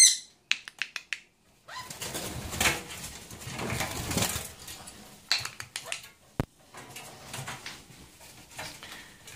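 Conures flapping and fluttering their wings inside a wire cage, a noisy rustling that is strongest in the first half. Scattered clicks and taps from the cage, with one sharp click about six and a half seconds in.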